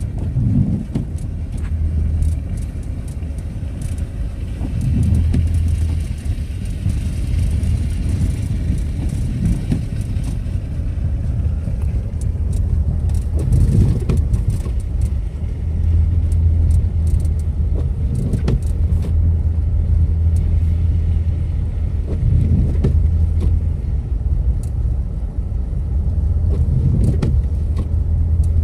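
Motor vehicle driving, with a steady low engine and road rumble and scattered light clicks and knocks.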